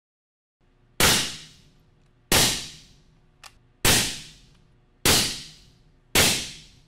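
Five suppressed .308 Winchester rifle shots fired through an AB Raptor 7.62 four-stack suppressor on a 3-inch reflex mount. Each is a sharp crack with a short fading tail, a little over a second apart, with a faint click between the second and third shots. The meter reads about 133 to 138 dB peak at mid-gun.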